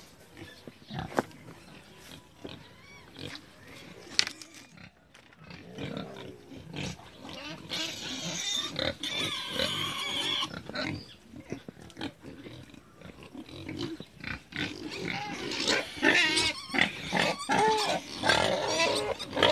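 Pen of pigs and piglets grunting and squealing. There is a burst of squealing about eight seconds in, and the squeals grow louder and busier over the last few seconds.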